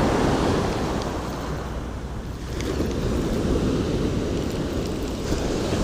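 Ocean surf washing on the beach, with wind buffeting the microphone; the wash eases about two seconds in, then builds again.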